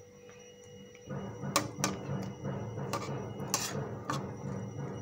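Spatula stirring bread pieces through thickened milk in a steel pan, knocking and scraping against the pan: about five sharp clicks from about a second and a half in, over a low rumbling noise that starts about a second in.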